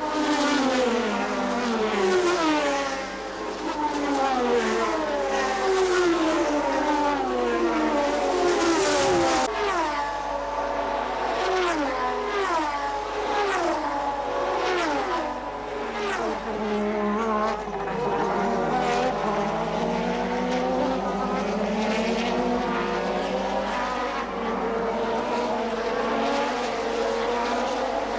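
1988 Formula One cars, a mix of turbocharged V6 and naturally aspirated V8 engines, passing one after another at racing speed. Each engine note falls in pitch as the car goes by, and several cars' notes overlap.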